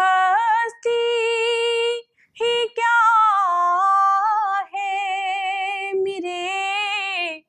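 A woman singing solo and unaccompanied, drawing out long, ornamented held notes of an Urdu devotional song to Gharib Nawaz. She breaks off for breath briefly about two seconds in, and again just before the end.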